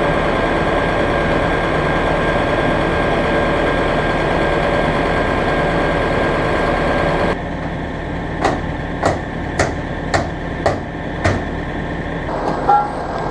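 A heavy diesel truck engine idling steadily, cut off suddenly about seven seconds in. Then comes a run of six sharp knocks about half a second apart, with a couple more near the end.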